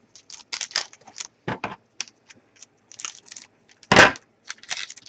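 Trading card pack wrappers crinkling and tearing as packs are opened, with cards handled in a run of short rustles and clicks. One louder knock comes about four seconds in.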